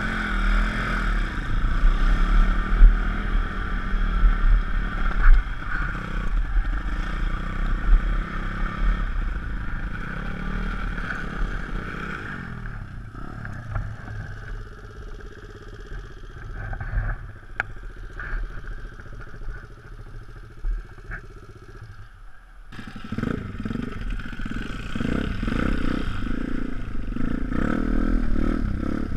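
Pit bike with a 160cc YX single-cylinder four-stroke engine running under throttle on a dirt trail, then dropping to a quieter, lower running for several seconds in the middle with a few clicks and knocks, before revving up again near the end.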